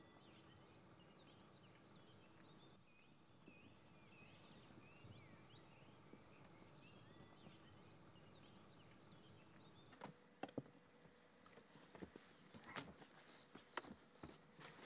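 Faint outdoor ambience with small birds chirping and trilling over a low steady hum. About ten seconds in, the background changes and a run of irregular sharp clicks or knocks begins, like steps or hooves on a hard surface.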